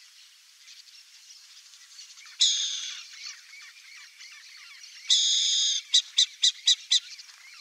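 Burrowing owl calling: one loud call about two and a half seconds in, a longer call at about five seconds, then five short clipped notes in quick succession, about four a second. A faint background of many small chirps runs underneath.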